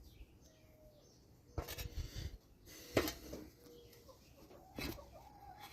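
A few sharp clicks and knocks of small metal parts and tools being handled, as a screw is fitted into a lawn mower engine's fuel pump by hand. Faint short chirps, like birds, in the background.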